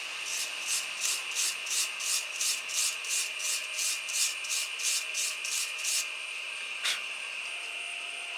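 Rhythmic scraping strokes on metal, about three a second for some six seconds, followed by a single sharp click.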